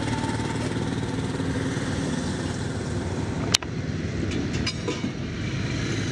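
Steady hum of road traffic, with a single sharp click about three and a half seconds in.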